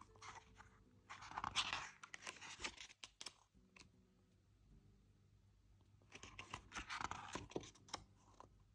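Thin photobook pages being turned and handled: two spells of paper rustling and crinkling with light taps. The first lasts about three seconds from the start; the second comes about six seconds in.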